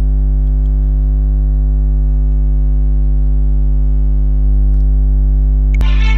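Loud, steady low electrical hum with a stack of evenly spaced overtones, typical of mains hum picked up in a screen recording. About six seconds in, a click is followed by the start of music.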